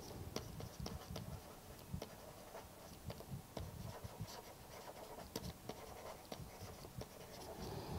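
Faint, irregular tapping and scratching of a stylus writing on a tablet screen.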